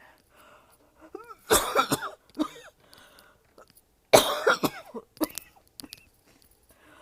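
A person coughing hard in two fits, one about one and a half seconds in and a louder one about four seconds in, each followed by a smaller cough. It is a painful cough, felt in the throat and chest.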